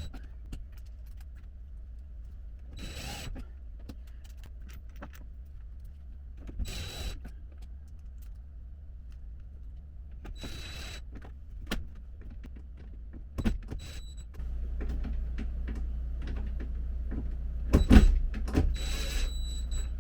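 A small electric motor whirring in short bursts a few seconds apart, over a steady low hum that grows louder partway through.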